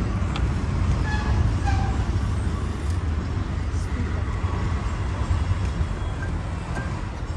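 Steady rumble of passing road traffic, with voices in the background and a few short faint high sounds in the first two seconds.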